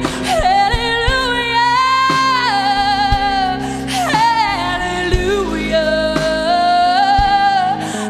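A woman singing long, held notes with vibrato, gliding between pitches, into a microphone over live band accompaniment with bass and drum hits.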